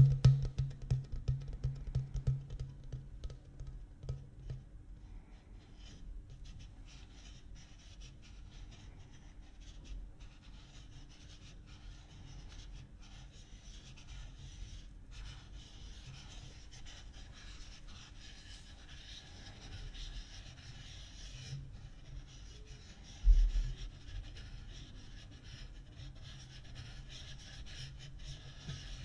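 Empty ridged plastic water bottle rubbed and scratched by fingers close to the microphone: louder handling in the first few seconds, then faint continuous scratching. A single thump comes about 23 seconds in.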